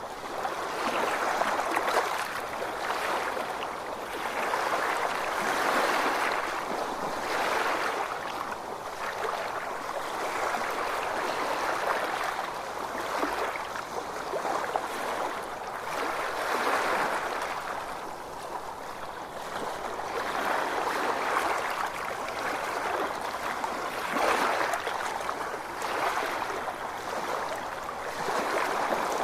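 Ocean water washing in small waves, a steady rush that swells and eases every couple of seconds.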